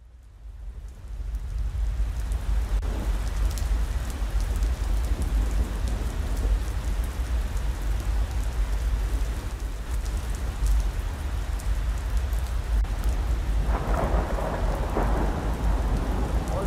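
Steady rain with a low rumble of thunder, fading in over the first second or two.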